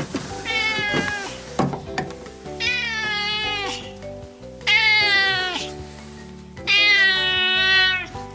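Orange tabby cat meowing four times in long, drawn-out meows, the last two the loudest and longest, begging for food because it is hungry. A few sharp knocks come in the first two seconds.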